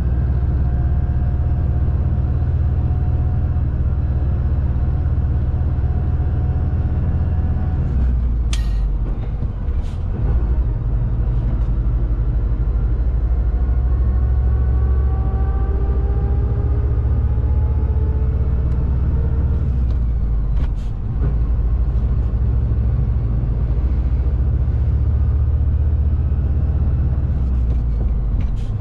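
Shacman X3000 heavy truck's diesel engine running under load, heard inside the cab as a steady low drone, with its note rising gradually in the middle. Twice the low drone briefly drops, about 8 and 21 seconds in, each time with a few brief sharp noises.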